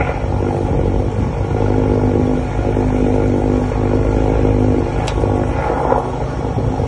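Pressure jetter's motor and pump running steadily with a constant humming drone, driving water down the jetting hose to clear a sewer-drain blockage. A short sharp click about five seconds in.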